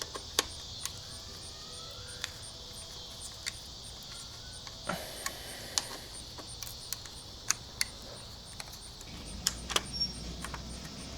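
Scattered light clicks and taps of hand tools and small parts being handled while an electric mini bike is taken apart, over a steady high hiss.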